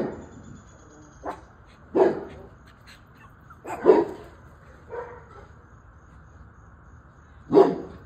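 A dog barking in about six short single barks, spaced irregularly a second or two apart.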